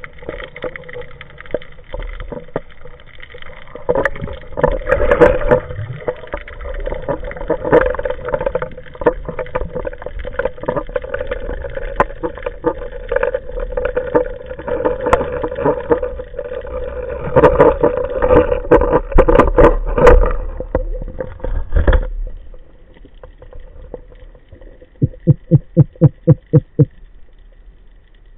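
Underwater sound picked up by a camera on a speargun: rushing water with many clicks and knocks from handling while the gloved hand grips a rusty pipe. It goes much quieter about 22 seconds in. Near the end comes a quick run of about ten low, buzzing pulses.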